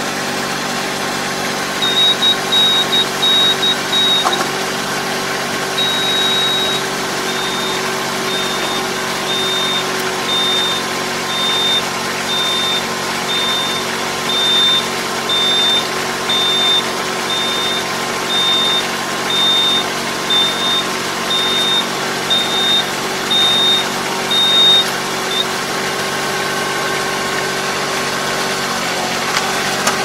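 Tractor engine running steadily at idle while its Kobashi puddling harrow folds up, with a high warning beep repeating a little over once a second from about two seconds in, stopping about five seconds before the end.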